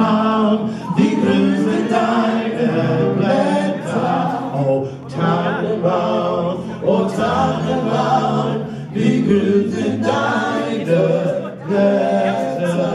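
Live gospel trio, a man and two women, singing together into microphones, several voices blending in sung phrases with brief breaths between them.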